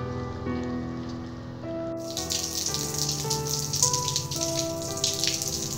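Background music with slow, held notes. About two seconds in, the steady hiss of rain falling joins it and continues under the music.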